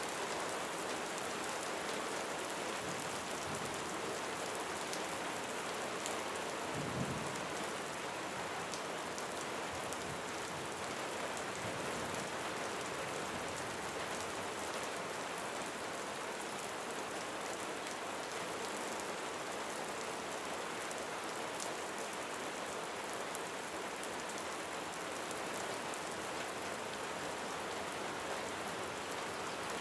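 Steady rain falling on a roof, with a brief low rumble of thunder about seven seconds in.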